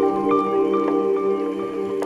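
Background music: a held chord with bell-like mallet notes struck one after another over it.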